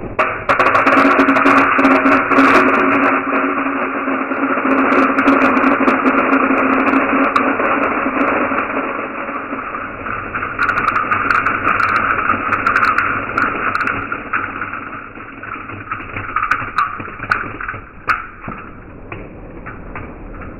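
Dry whole moong beans poured into a stainless steel bowl: a steady rattling hiss of beans striking metal with scattered sharp ticks. It fades over the last several seconds as the pouring ends.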